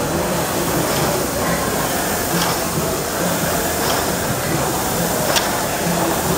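Concept2 rowing machine's air flywheel whirring steadily, swelling with each hard stroke, with a few light clicks.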